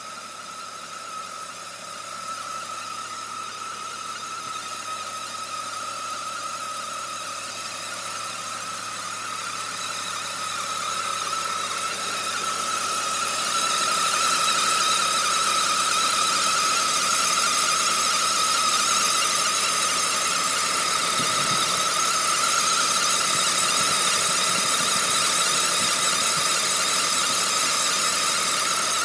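A strange high-pitched squeal from a BMW 330i E46: one steady tone with fainter higher tones over a hiss. It grows louder over about the first half, then holds steady.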